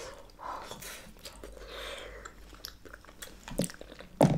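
Close-miked chewing of soft baked ziti pasta: wet mouth sounds with scattered small clicks. Near the end comes one short, louder thump.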